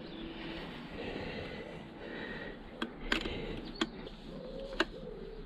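Metal spanner clicking against the nut on a starter motor's positive terminal as the nut is run down, four short sharp clicks over a steady background hiss.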